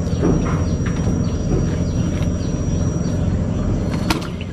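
Scattered knocks and flapping of a freshly landed wild Nile tilapia being handled and unhooked at the raft's wooden edge, over a steady low rumble, with one sharp click about four seconds in.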